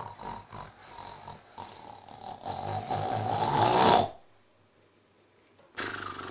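A person snoring, a rough noisy snore that grows steadily louder over about four seconds and then cuts off abruptly. After a short silence, a steady sound starts near the end.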